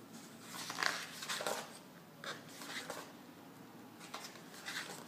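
Paper pages of a hardback book being turned and smoothed by hand: several short, soft paper rustles.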